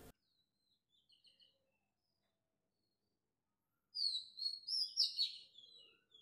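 Small birds chirping: a few faint high chirps about a second in, then a louder flurry of quick chirps from about four seconds in, lasting about two seconds.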